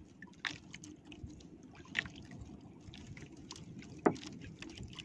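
Water lapping against the hull of a small outrigger boat adrift, with scattered light clicks and knocks, the loudest about two seconds and about four seconds in.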